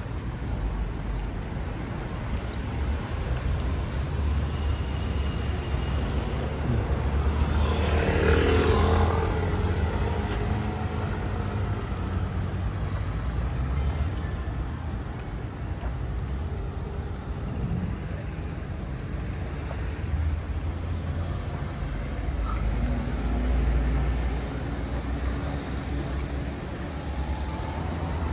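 Road traffic over a steady low rumble, with one vehicle passing about eight seconds in, the loudest moment.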